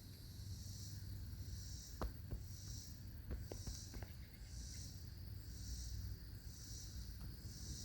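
High-pitched insect chorus pulsing in a steady rhythm, a bit more than once a second, over a low rumble, with a few light clicks about two to four seconds in.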